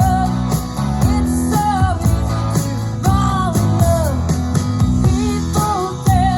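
Recorded rock song played through a Minirig 3 portable Bluetooth speaker: a woman singing over guitar, bass and a steady drum beat.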